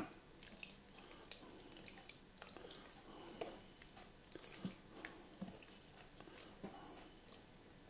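Near silence with faint, scattered spoon clicks and soft wet squishes: okroshka being stirred in a bowl, a mixture still on the thick side.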